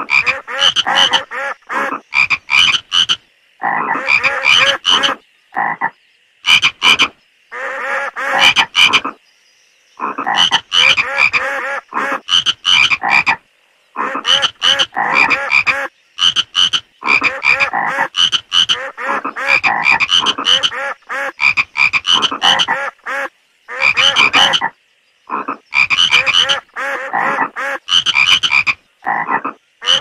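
Frogs croaking in loud bursts of rapid, pulsed croaks, repeated again and again with abrupt short silences between them.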